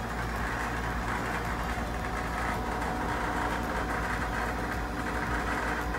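A steady low mechanical hum with a hiss over it, unchanging throughout.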